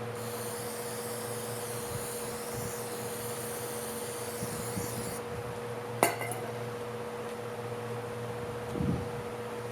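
A spray of aerosol carburetor cleaner hisses for about five seconds into the float bowl of a 1986 Yamaha G1's carburetor as the rusty sediment is flushed out. A sharp metallic click follows about six seconds in, and a soft knock comes near the end, over a steady workshop hum.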